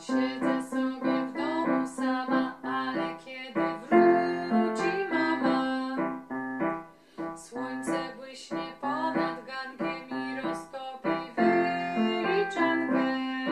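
Electronic keyboard playing a song's tune in quick notes over held chords.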